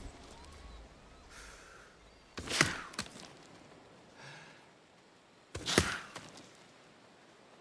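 Two blowgun shots about three seconds apart, each a short sharp puff of air with a click just after it.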